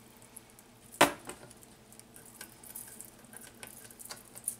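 Small clicks and clinks of a vanilla extract bottle and metal measuring spoon being handled, with one sharp knock about a second in.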